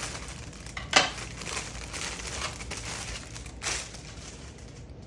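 Crinkling packaging being pulled open and unwrapped by hand, with a sharp, loud rip about a second in and a smaller one near the end.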